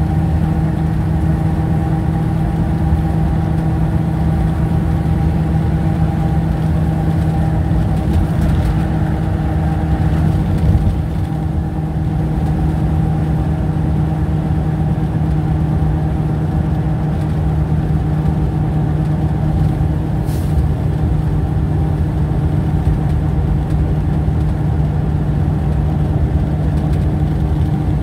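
Steady engine and road noise heard inside a vehicle cruising at highway speed: a continuous low drone with a constant hum and tyre rumble.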